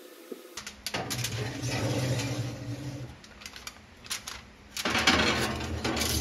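Aluminium foil crinkling and rustling in two loud stretches, with sharp clicks and clinks of a glass baking dish against the metal oven racks in between, over a low steady hum.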